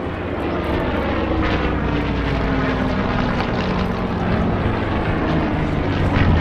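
Rolls-Royce Merlin V12 engines of a Spitfire and Hurricane flying past at a display, the engine note falling steadily in pitch as they pass.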